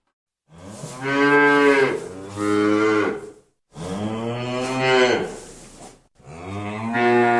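Cow mooing: a run of long, drawn-out moos, one after another with short pauses between them.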